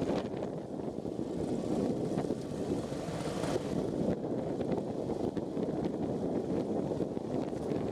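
Wind rushing steadily over the microphone of a paraglider in flight.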